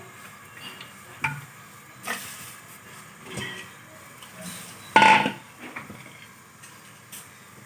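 Pots and kitchen utensils being handled: a handful of separate clinks and knocks, the loudest a sharp clatter about five seconds in.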